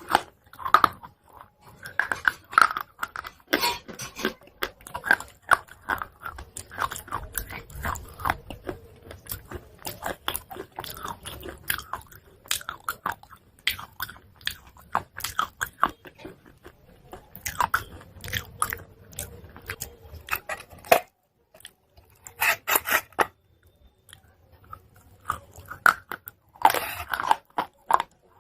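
Chalk pieces being bitten and chewed: a run of sharp, irregular crunches, with a short pause a little past two-thirds of the way through and louder crunches near the end.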